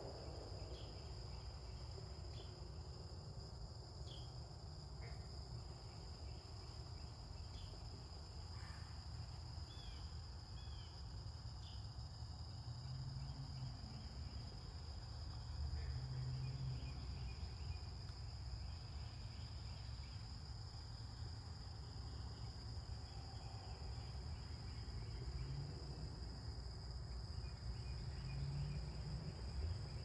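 Crickets trilling steadily, with scattered short chirps from songbirds, over a low background rumble.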